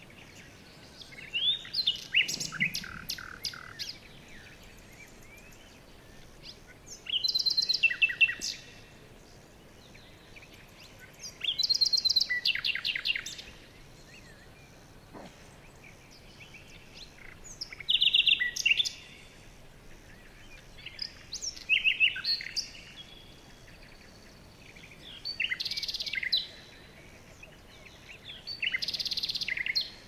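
Small songbirds singing: short, bright trilled phrases of rapidly repeated high notes, about seven of them, a few seconds apart.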